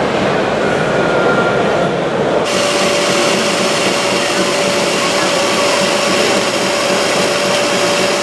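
Steady whine of a small electric motor over a rushing hiss, starting about two and a half seconds in: a scale Horsch UW 150 transfer wagon's auger running, pouring gravel into a model tractor's trailer. Before it, general hall noise.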